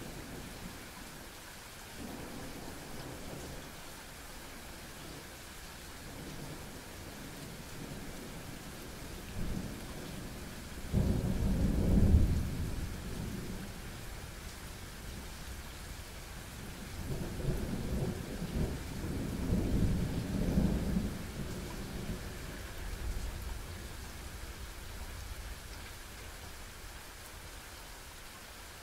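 Thunder over steady rain: a loud rumble breaks out about eleven seconds in, then a longer rolling peal follows and dies away, while the rain keeps hissing.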